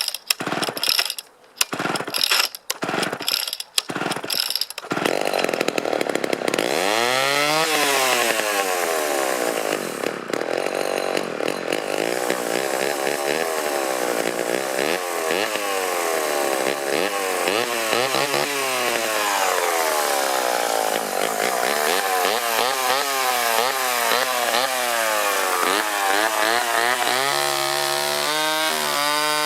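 Homelite Super XL Automatic two-stroke chainsaw cold-started on choke after sitting for six months: a few seconds of short, broken bursts of firing, then it catches about five seconds in and runs. It is revved up and down repeatedly, the pitch rising and falling, and settles to a steadier, lower speed near the end.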